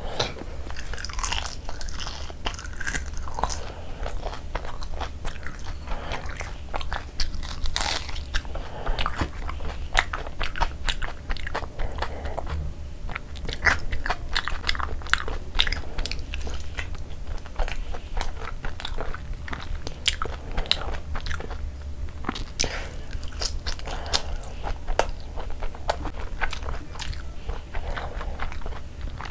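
Close-miked eating: chewing and wet mouth sounds with frequent crunchy bites, from fried puri dipped in spicy egg curry gravy. A steady low hum runs underneath.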